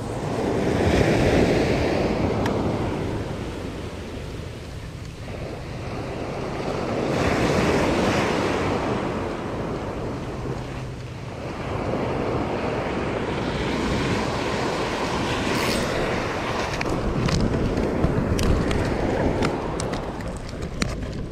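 Ocean surf breaking on the shore, swelling and ebbing about every six seconds, with wind buffeting the microphone. A few sharp clicks near the end.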